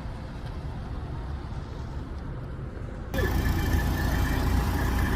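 Heavy vehicle engine running with a steady low rumble, jumping abruptly louder about three seconds in, with a thin steady whine over it after the jump.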